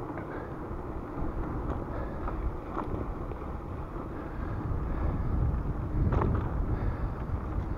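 Wind rushing over the microphone of a camera on a moving bicycle, a low rumble that grows louder in the last few seconds, with a few faint clicks.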